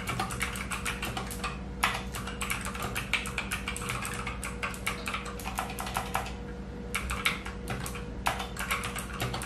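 Fast typing on a full-size mechanical keyboard fitted with Alcha double-shot PBT keycaps: a dense run of key clacks, broken by brief pauses about two seconds in and again around six and a half seconds in.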